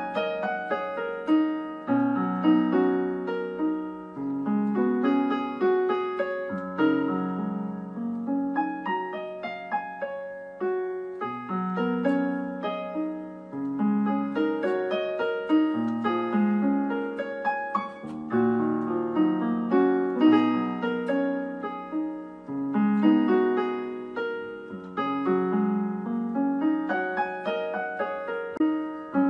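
Solo piano music: a flowing run of single notes over repeated low note patterns, each note struck and left to fade.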